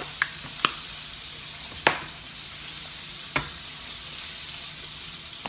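Hot oil frying with a steady sizzling hiss. Over it come four light knocks as a wooden salt box and bottles are handled on the countertop; the loudest is about two seconds in.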